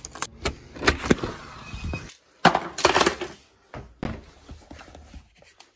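Keys jangling and clicking in a front-door lock, then a series of knocks and clatters as leather shoes are stepped out of on a wooden laminate floor. The loudest knocks come about halfway through.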